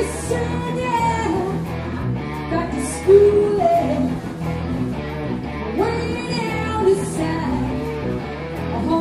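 Live rock band: a woman singing long held notes into a microphone over electric guitar and drums, with cymbal hits near the start, about three seconds in and about seven seconds in.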